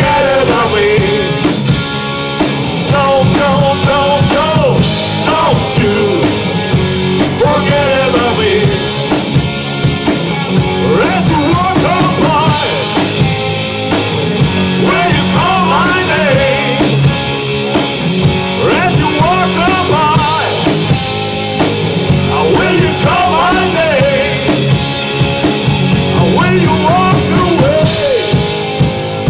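Live rock band playing: electric guitars, bass and drums, with a melodic lead line that bends in pitch over a steady backing.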